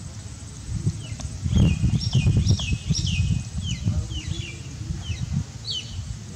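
A run of short, high, downward-sliding chirps, roughly two a second, over an uneven low rumble.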